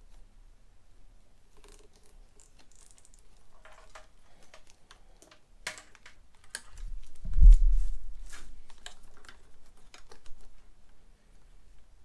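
Scattered small clicks, taps and rustles of hands working on motorcycle wiring, with one loud dull low thump a little past halfway.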